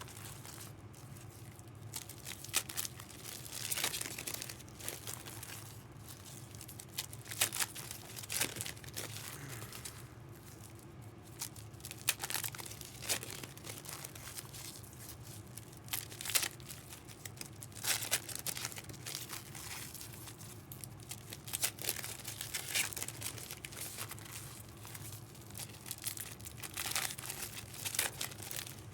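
Intermittent crinkling and rustling of packaging being handled, in scattered short crackles over a low steady hum.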